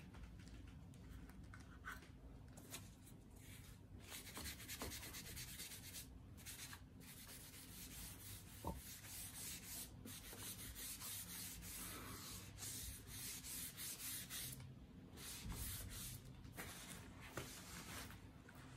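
Wood-care grease being rubbed into the wooden stock of a Kar 98k rifle: faint rubbing strokes in stretches, pausing twice briefly.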